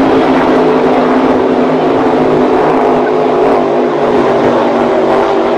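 Offshore racing powerboats at full speed: a loud, steady engine drone of unchanging pitch over a broad rushing noise.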